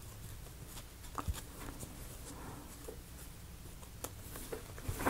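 Faint, scattered taps and scrapes of hands working on a small wooden model part, wiping excess glue out of a crack, over a low steady hum.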